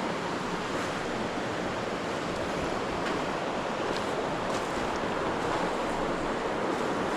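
Mountain stream water rushing steadily over rocks, an even unbroken wash of sound.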